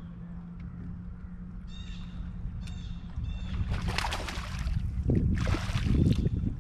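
Sounds on a small fishing boat on a lake: a low steady hum, and three short bird calls about two seconds in. In the second half come two louder bursts of rushing noise with low thumps.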